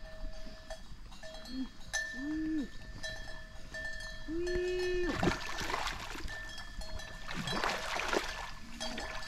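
A hooked fish thrashing and splashing at the surface of a pond while being pulled in on a line, in two splashy bouts about five and seven seconds in. Steady high ringing tones and a few short low calls go on in the background.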